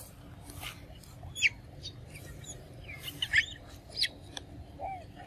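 Scattered short, high bird chirps, a few quick sweeping calls about a second apart.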